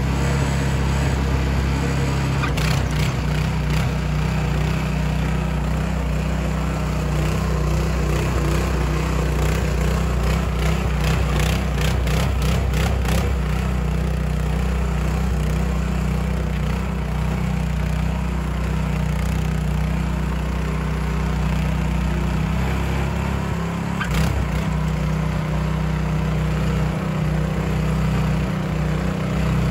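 Two-wheel walking tractor's 7 hp engine running steadily under load, pulling a trailer loaded with hay bales through mud. A brief run of clicks comes about twelve seconds in.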